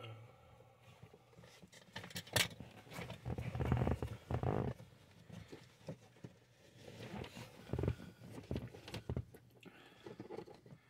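A new cabin air filter being worked by hand up into its plastic housing behind the glovebox: irregular rustling and scraping with scattered plastic clicks and knocks, loudest around four seconds in.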